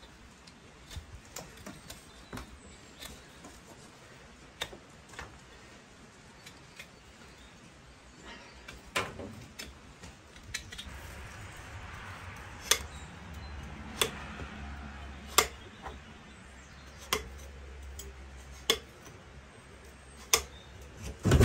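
Farrier trimming a donkey's hoof: light clicks and scraping of a hoof knife paring the sole, then hoof nippers snapping through the hoof wall in sharp single clips, about one every second and a half.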